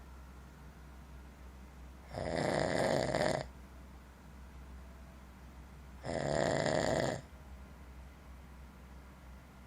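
A sleeping man snoring: two loud snores, each about a second long and about four seconds apart, with a low steady hum between them.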